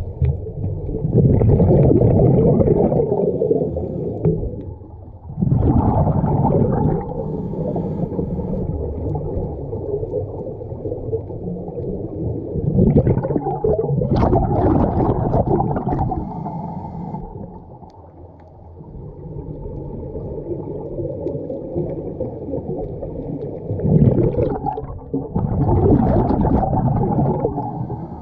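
Scuba diver breathing through a regulator underwater: four loud bubbling exhalations, several seconds apart, over a steady muffled rumble.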